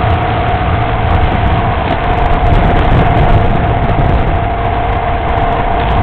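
Motorcycle running at a steady cruising speed, its engine note held steady under wind buffeting and rushing over the onboard microphone.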